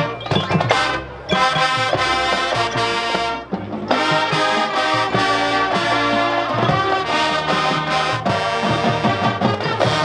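High school marching band playing a Motown arrangement: brass chords over a drumline, with short breaks in the sound about a second in and again a little past three seconds.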